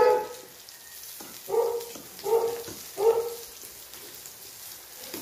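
A dog barking three times, short barks about two-thirds of a second apart, over the faint sizzle and crackle of pork belly cooking on an electric grill plate.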